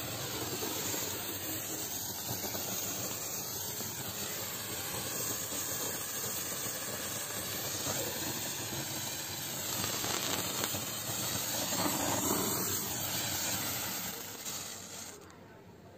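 Cock Brand silver rain pencil firework, a hand-held sparkler torch, burning with a steady fizzing hiss as it throws sparks. The hiss dies away near the end as the pencil burns out.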